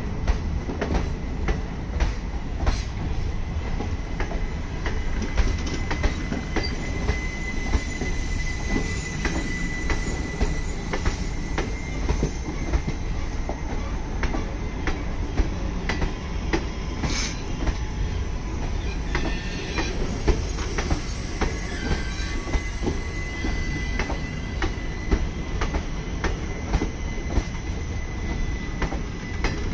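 Passenger sleeper coaches of a departing express train rolling past, with a steady rumble from the wheels and frequent sharp clicks and knocks as the wheels cross rail joints. A thin, high wheel squeal comes and goes twice.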